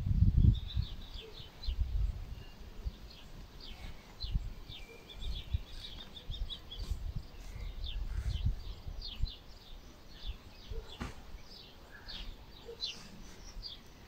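Small birds chirping, many short high chirps in quick succession, over gusts of wind rumbling on the microphone, strongest in the first half-second.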